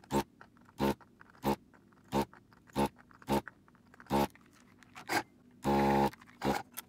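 Vacuum pump of a gun-type desoldering station switched on in short pulses, each a brief buzzing suck of air and molten solder through the heated nozzle, repeating about every two-thirds of a second, with one longer half-second run near the end.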